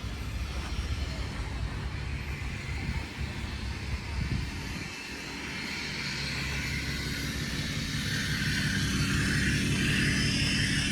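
A vehicle passing on the street: a steady engine hum and tyre hiss that grow louder through the second half as it approaches. The first half holds a low outdoor rumble.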